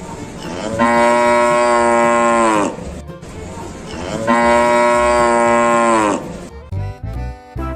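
Cow mooing twice, two long calls of about two seconds each, the pitch holding steady and then dropping off at the end of each.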